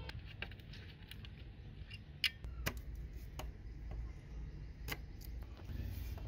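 Scattered small clicks and taps of steel needle-nose pliers against the plastic base of an old desk phone as its battery-compartment contacts are worked, with the housing handled. The sharpest click comes about two seconds in, over a steady low background rumble.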